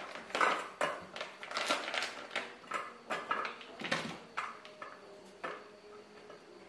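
A plastic sausage packet crinkling and rustling as it is torn open and emptied onto an enamel plate, a string of sharp rustles and taps that dies away about five seconds in.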